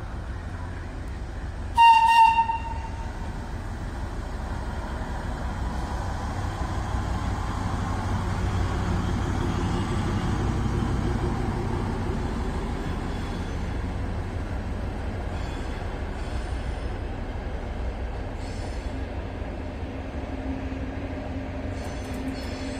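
FS Class 245 diesel shunting locomotive: a short, loud horn blast about two seconds in, then its diesel engine running steadily, growing louder in the middle as it pulls away.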